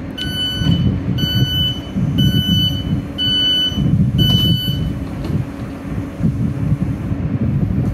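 An electric train's door warning sounding five evenly spaced high beeps, about one a second, over the low rumble of the train standing at the platform.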